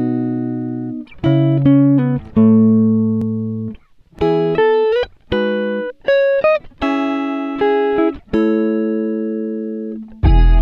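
Background music: a plucked guitar playing ringing chords and short melodic phrases, each chord fading before the next, with brief pauses between them.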